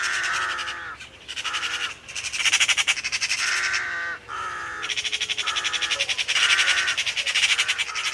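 A string of harsh, crow-like caws, each under a second long, coming one after another with short breaks.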